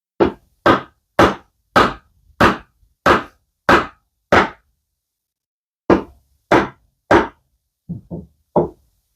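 Hammer blows on wood driving a glued mortise and tenon joint home. There are eight evenly spaced strikes about two-thirds of a second apart, a pause, then three more, and three lighter taps near the end.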